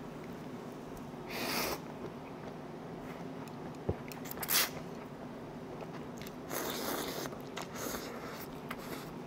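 A person eating stir-fried ramen noodles: several short slurping bursts, with chewing between them and a single click from a utensil about four seconds in.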